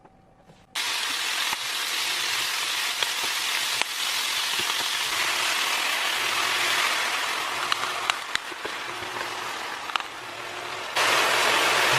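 Bacon sizzling in a hot frying pan: a dense, steady sizzle with scattered sharp pops, growing louder about a second before the end.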